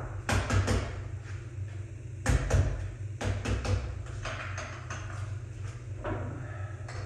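Several short, irregular bursts of knocking, scraping and clatter from hands and a tool working the drum of a slotted floor drum sander as the sandpaper is fitted and tightened on it.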